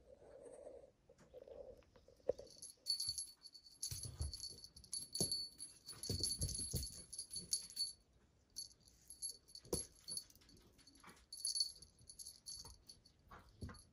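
A cat wand toy jingling in bursts as it is shaken and swatted, with soft thumps on the carpet as the kitten pounces.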